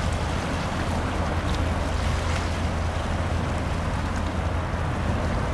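A passing general cargo ship: a steady low engine drone under a constant wash of water and wind noise.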